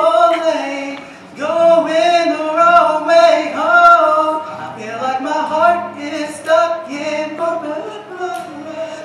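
A young man singing solo into a microphone: long, held notes that slide up and down, with a short break for breath about a second in.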